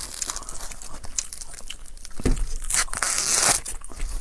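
Green husks being torn and peeled by hand from a fresh young ear of corn: crisp tearing and crackling, with one long, loud rip about three seconds in.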